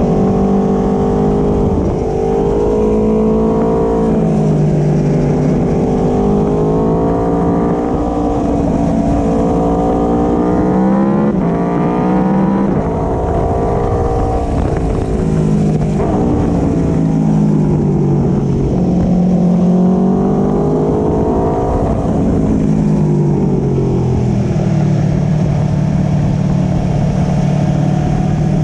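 2017 Aprilia Tuono V4 Factory's V4 engine through a road-legal Akrapovic slip-on exhaust, heard close up while riding. The engine note climbs and drops again and again as the bike accelerates and eases off, with one sharp climb about halfway through.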